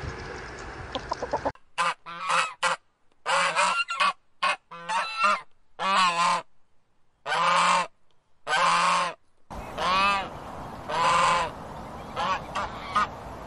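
Swan honking: a run of short honks with silent gaps between them, then from about ten seconds in more honks over a steady background hiss. In the first second and a half, chickens cluck faintly as they feed.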